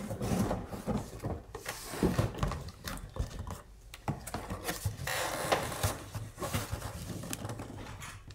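A cardboard box of plastic-wrapped vinyl and fabric rolls being handled and rummaged through: rustling with scattered knocks and taps.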